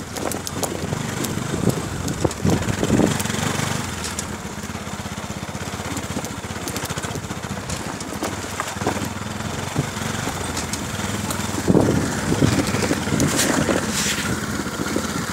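Motorcycle engine running at steady low revs while riding over a rough dirt track, with scattered knocks and rattles from the bumps.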